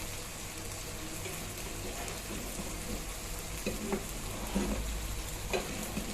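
Food sizzling in hot oil in a cooking pan as a curry is stirred, with a few light knocks of the spoon against the pan in the second half.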